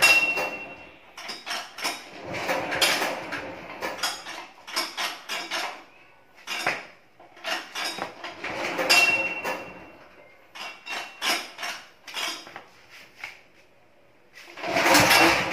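Hakata diesel generator being started by hand without catching: clusters of metallic clattering and rattling every one to two seconds, with a brief high squeal at the start and again about nine seconds in, and a louder, longer rattle near the end. No steady running engine note follows.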